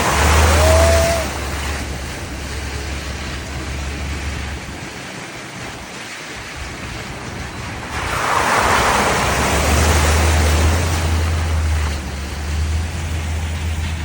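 Vehicle driving on a wet, muddy road: a rushing hiss from the tyres and water swells up twice, near the start and again from about eight seconds in, over a low steady engine hum.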